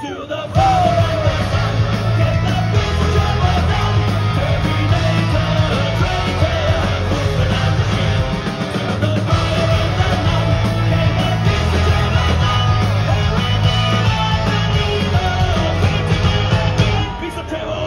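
Live power metal band playing loud, heard from within the crowd: pounding drums and bass, keyboards and guitars, with a male singer. The music dips briefly just before the end.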